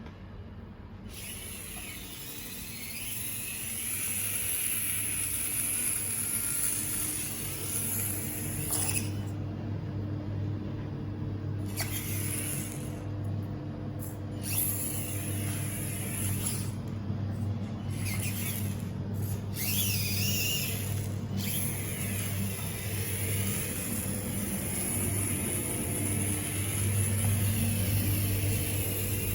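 Axial SCX24 micro RC crawler's electric motor and gears whining, cutting in and out repeatedly as the throttle is applied and released.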